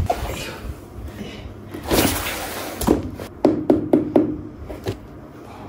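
Hands tapping and knocking on a taped cardboard shipping box: a run of short, sharp taps, several close together in the middle, with a brief brushing noise just before them.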